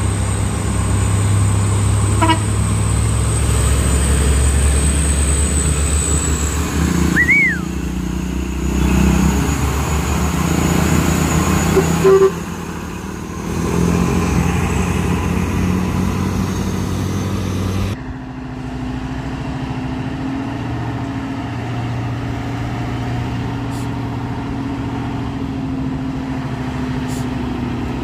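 Truck engines running steadily, with a brief horn toot about twelve seconds in. About two-thirds of the way through the sound changes suddenly to a different steady engine note.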